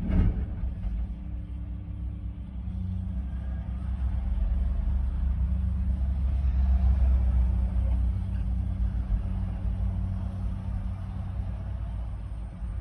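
Large engine running with a steady low rumble that swells for a few seconds in the middle and eases toward the end, after a short knock right at the start.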